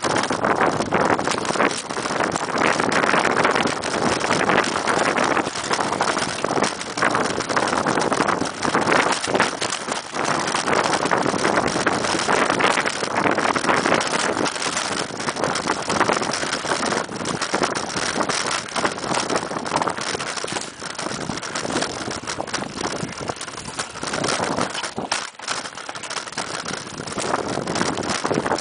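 Mountain bike ride noise on a rough forest dirt trail: a continuous rattle and rush of tyres and bike over the bumps, full of small knocks and clatters, with wind on the microphone.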